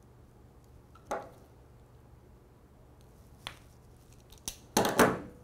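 Hands handling small wires and crimp connectors: a few scattered clicks and rustles, then a louder cluster of two or three sharp clicks near the end.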